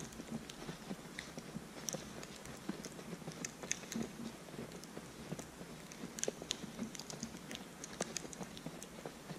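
Footsteps crunching through fresh snow at a walking pace, with many small irregular crackles between the softer treads.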